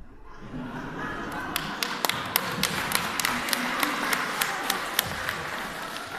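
Sharp taps in an even rhythm, about four a second, over a steady hiss of crowd noise; they start about a second and a half in and stop about a second before the end.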